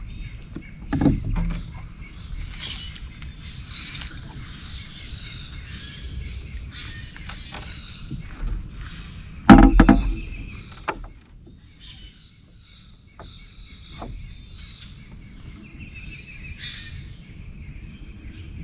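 Swamp birds chirping and calling repeatedly, over a low steady rumble, with a few small knocks and one loud thump about halfway through.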